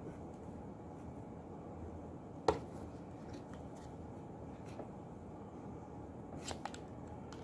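Plastic clicks from a DC magnetic contactor's housing being worked apart by hand at its stuck latches: one sharp click about two and a half seconds in, a couple of fainter ones near the end.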